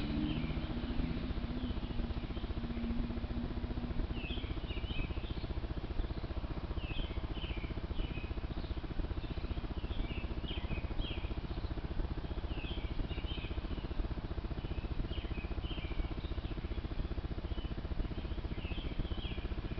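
Groups of short, high chirping calls repeating every second or two over a steady background hiss and hum. A low drone fades out in the first few seconds.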